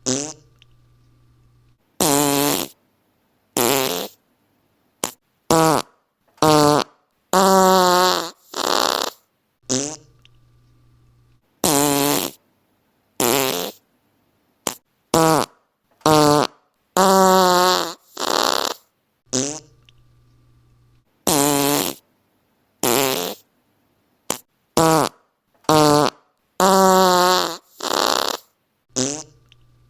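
A run of fart sounds, from short pops to longer farts that waver in pitch, about nine every ten seconds with short silences between. The same sequence plays three times over.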